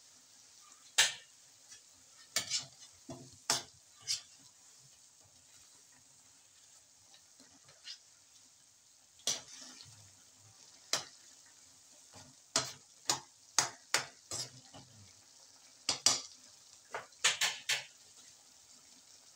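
A metal utensil stirring food in a metal wok, clinking and scraping against the pan in clusters of sharp strikes, about twenty in all. A faint steady sizzle of simmering sauce runs underneath.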